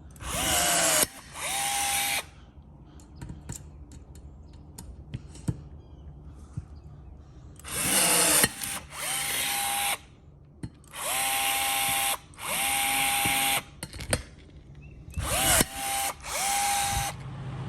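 Power drill run in short bursts, about nine in all and mostly in pairs and threes. Each burst spins up quickly to a steady whine, then stops.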